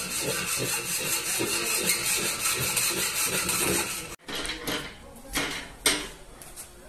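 Hacksaw cutting a metal pipe clamped in a pipe vise, with steady back-and-forth strokes. The sawing cuts off suddenly about four seconds in, followed by a few sharp metal knocks.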